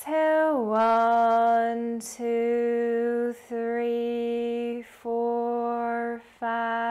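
A woman's voice says "exhale" with a falling glide, then holds a run of long tones on one pitch in a chant-like monotone, each about a second long with short breaks between. The held tones pace the slow eight-count exhale of 4-7-8 breathing.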